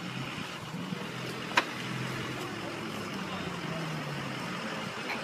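4x4 pickup truck's engine running as it crawls over rough ground, its note rising and falling slightly. A single sharp click comes about a second and a half in.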